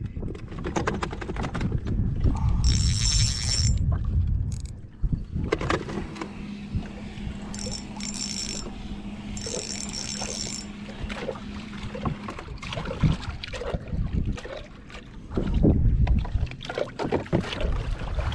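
Spinning reel being cranked to wind in line, with wind buffeting the microphone and small knocks. A steady low hum runs for several seconds in the middle.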